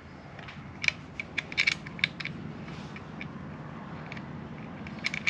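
Hand rivet gun being worked: metal clicks and scrapes as its nosepiece is pressed against the spring-loaded jaws and threaded back on. The clicks come irregularly, bunched about one to two seconds in and again near the end, over a low steady hum.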